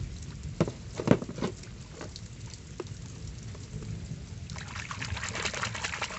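A hand swishes a mud-covered plastic toy dinosaur through a shallow muddy puddle to wash it, the water splashing and sloshing from about four and a half seconds in. Before that there are only a few faint clicks.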